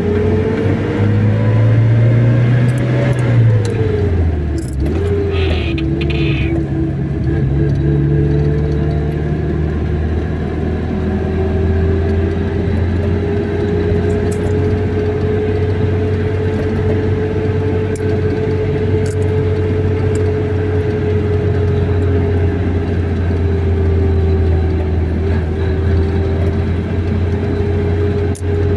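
Car engine and road noise while driving. The engine note rises, drops about three to four seconds in, then runs steadily. A short high-pitched sound comes about six seconds in.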